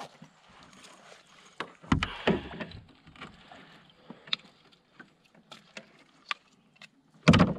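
Gear being handled in a kayak: scattered small clicks and knocks, with a louder thump about two seconds in and another near the end.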